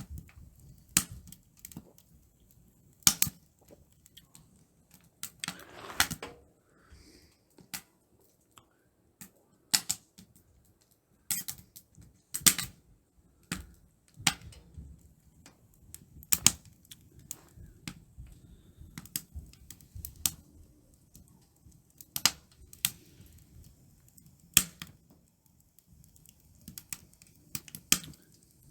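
Wood fire crackling in a titanium camp stove: sharp, irregular pops and snaps, roughly one every second or two, some much louder than others, over a faint low rumble.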